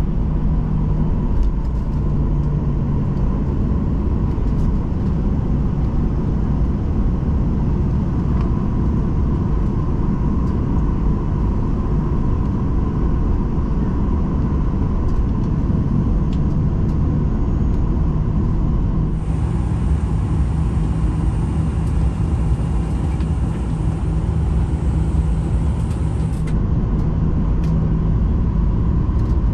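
Cabin noise inside a Boeing 737-800: the steady low rumble of its CFM56 engines and air conditioning, with a faint steady hum. A faint high-pitched hiss comes in about 19 seconds in and cuts off about seven seconds later.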